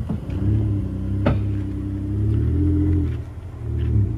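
Nissan Frontier's 3.8-litre V6 pulling the truck up a rutted dirt hill, its note rising and falling with the throttle, easing off briefly near the end and then picking up again. A single sharp click sounds about a second in.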